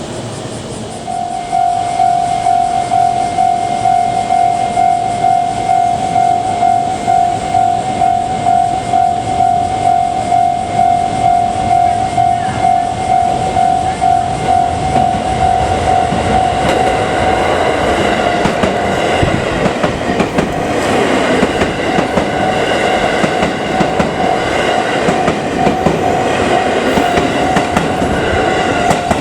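Japanese level crossing warning bell ringing in a steady repeating ding from about a second in. A bit past halfway, the JR West 281 series 'Haruka' limited express electric train reaches the crossing, and the rush and rumble of its passing rise under the bell and stay to the end.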